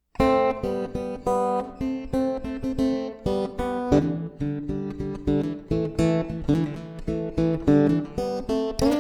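Acoustic guitar music: chords strummed in a quick, steady rhythm.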